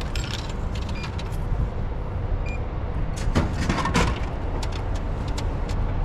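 A vending machine taking coins and dropping a drink: a few light clicks in the first second or so, then two louder clunks about three and a half and four seconds in as the item falls into the tray, over a steady low rumble.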